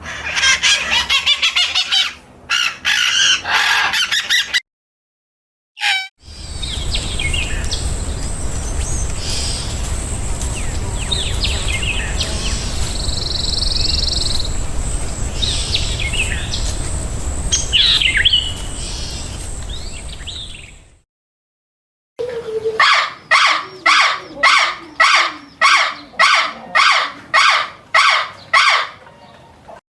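Birds calling and chirping in three short recordings spliced together with abrupt cuts. The first is dense and rapid, the middle is scattered calls over steady background noise, and near the end comes a run of evenly repeated calls, about two a second.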